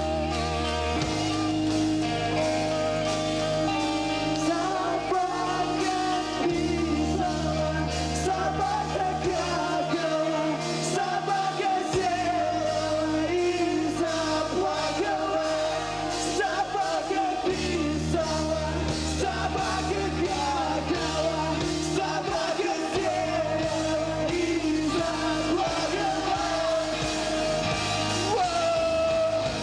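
Emo rock band playing live, with bass notes that shift every few seconds under a wavering vocal or lead line. The sound is rough and lo-fi.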